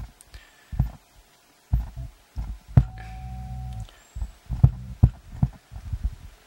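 Irregular low thumps and short bursts of low hum from the speaker fed by a subwoofer low-pass filter preamp board, with a few sharp clicks: the signal cuts in and out as the volume pot's shaft is pressed, the sign of a dodgy connection in the volume potentiometer. The longest burst of hum lasts about a second near the middle.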